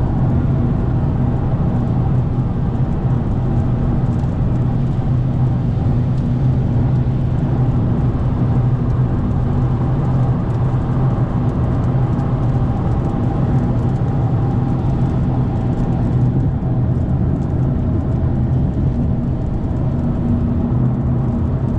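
Car engine and tyre noise at a steady cruise: an even, unchanging hum.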